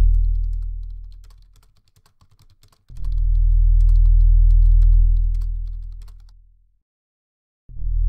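A deep droning synthesizer tone from the film's score swells and fades away, comes back about three seconds in, fades again and returns just before the end. Light clicking of typing on a laptop keyboard runs under it through the middle.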